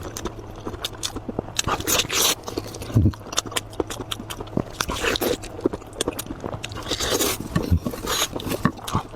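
Close-miked eating sounds: a person biting, chewing and tearing at braised sheep's head meat, with wet smacks and many short sharp clicks and crunches.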